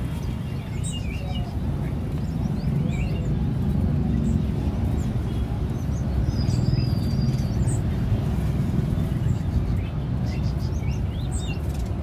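Caged small songbirds chirping sporadically, with one drawn-out high whistle about six seconds in, over a steady low rumble of street traffic.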